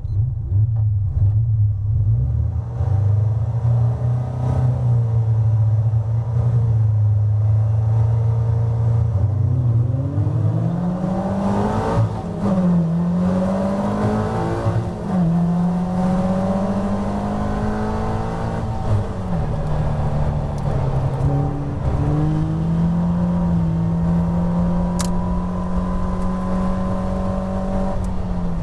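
Caterham Seven race car's four-cylinder engine heard from the cockpit: held at steady revs on the grid, then a standing start about ten seconds in, climbing in pitch with three upshifts a few seconds apart, and running at high revs near the end, with the other cars' engines around it.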